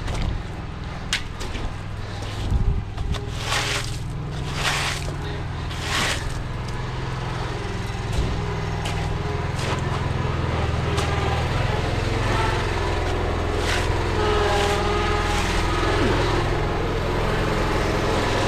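A vehicle engine running steadily and getting gradually louder, with a few sharp knocks and scrapes in the first several seconds.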